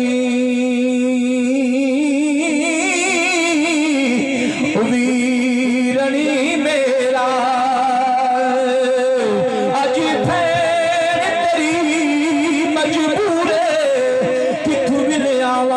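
A man singing a religious verse in a drawn-out, melismatic style into a microphone, holding long notes that waver and slide in pitch, with short breaths between phrases.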